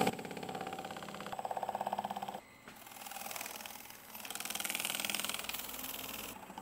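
Wood lathe spinning an oil-finished willow bowl while a cloth is held against it to buff the finish: a fast, even pulsing rub that grows louder and softer. It drops off sharply about two and a half seconds in and again near the end.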